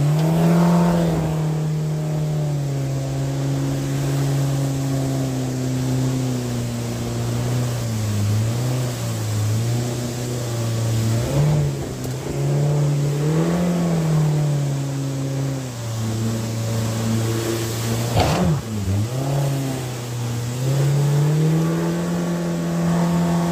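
Mercury outboard jet engine running under way, its pitch holding steady then dropping and rising again several times as the throttle is eased off and opened back up. A short loud burst of noise cuts in briefly about 18 seconds in.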